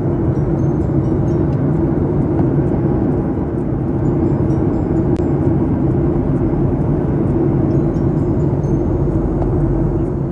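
Steady drone of an airliner cabin in flight, with jet engine and airflow noise and an even low hum.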